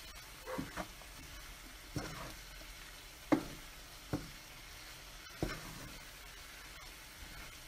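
Wooden spatula stirring and scraping diced onions, jalapeños, tomatoes and spices around a nonstick frying pan, over a low steady sizzle. About six separate scrapes, the loudest a little past three seconds in.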